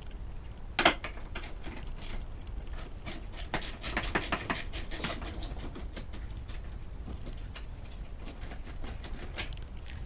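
Irregular clicks and knocks of hand tools and parts being worked loose on a Mitsubishi L200's headlight fixings, with one sharp knock about a second in and a busier run of clicking around the middle.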